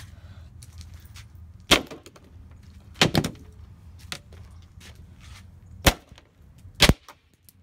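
Claw hammer striking down on a rusty metal table strewn with broken calculator pieces: four sharp bangs a second or so apart, the second a quick double hit.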